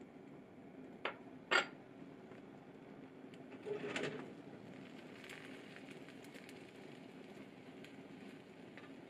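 Wooden chopsticks clicking twice against a cast-iron tamagoyaki pan, then a short clatter and scrape about four seconds in as they lift and roll the egg layer. Faint light ticks follow over a steady low hum.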